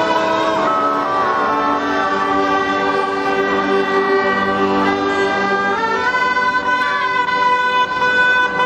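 A group of bagpipes playing a tune together in long held notes that step from pitch to pitch, climbing higher about two-thirds of the way through.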